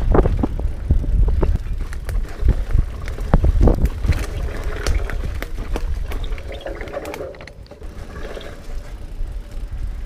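Specialized Rockhopper Comp 29 hardtail mountain bike riding a dirt singletrack: a steady low rumble from the tyres on the trail, with many sharp clicks and knocks as the bike rattles over bumps. It eases off briefly about three-quarters of the way through.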